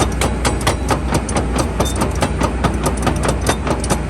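Hitachi ZX225USR-6 crawler excavator travelling in its slow travel speed: the diesel engine runs steadily while the steel tracks clank evenly, about five clanks a second.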